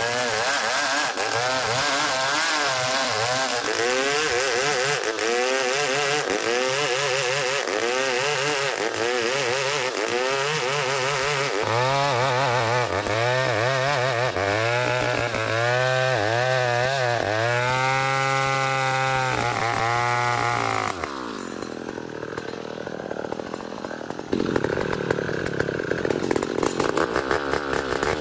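Two-stroke chainsaw cutting ulin (Borneo ironwood), its engine pitch rising and falling as the chain bogs and recovers in the cut. About 21 seconds in, the pitch falls and the engine drops to a quieter idle, then a few seconds later it revs up loudly again.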